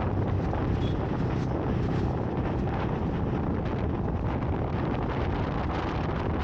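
Wind buffeting the microphone over the steady low drone of a vehicle on the move.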